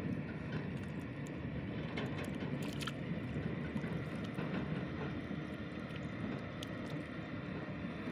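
A steady low rumble under light splashing and dripping of water as hands work a fish free of a nylon gill net in shallow water, with a few small sharp ticks about two to three seconds in.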